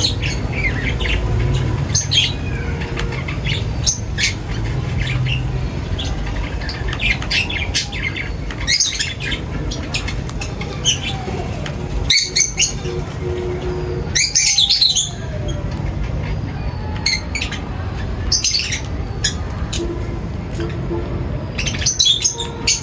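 Birds chirping in short, scattered calls, some in quick clusters, over a steady low background rumble.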